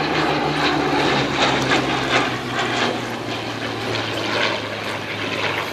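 Hawker Hurricane Mk.IIB's Rolls-Royce Merlin V12 engine and propeller droning in a flypast, the engine note falling slightly in pitch about a second in as the aircraft passes.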